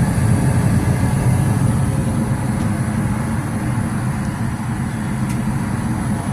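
Goodman gas furnace running steadily on its first heating run of the season: a constant low rumble with a rush of air.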